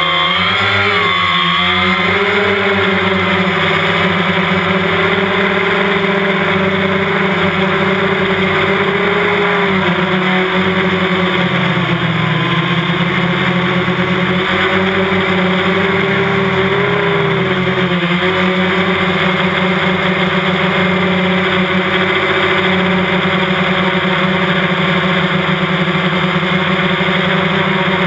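A DJI Phantom quadcopter's four electric motors and propellers running in flight, heard close up from the drone's own camera. It is a steady, loud whine of several pitches at once, and the pitch wavers briefly about a second in and again between about twelve and eighteen seconds.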